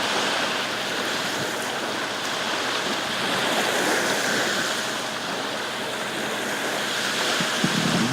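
Waves washing on a lake shore, a steady rushing noise that swells slightly midway.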